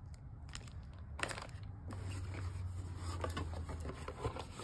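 Hands handling snack packaging: a plastic snack wrapper crinkling and the cardboard snack box being moved, heard as scattered crackles and rustles. There is a sharper rustle about a second in, then a busier run of small crackles.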